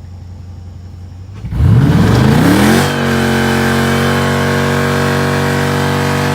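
A low steady hum, then about one and a half seconds in a Dodge Charger's engine starts: the revs rise and flare for about a second, then drop and settle into a steady idle.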